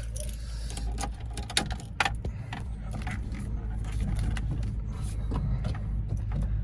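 A stalled manual car being push-started in reverse, heard as a steady low vehicle rumble with scattered clicks and knocks; it grows slightly louder over the last few seconds.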